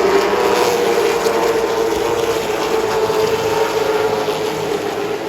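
Late model race car's V8 engine running hard under racing load. The note climbs a little near the start, then eases gradually down toward the end.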